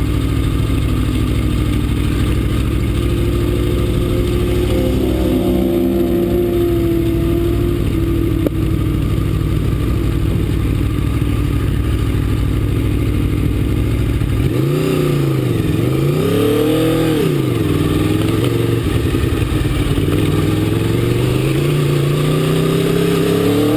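Aprilia RSV4's V4 engine running hard with a heavy low rumble. About two-thirds of the way through, its pitch falls and rises twice as revs drop and pick up again, and near the end it climbs steadily.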